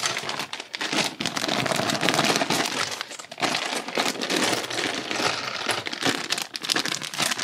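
Clear plastic polybags full of small building pieces crinkling and crackling as they are handled and opened by hand.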